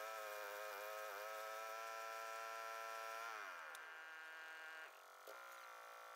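Engine of a water-well drilling rig running with a slightly wavering pitch. About three seconds in its pitch falls as it is throttled down, and it runs on lower and fainter.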